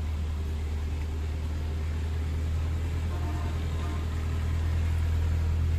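A steady, low engine hum, like a motor vehicle idling nearby.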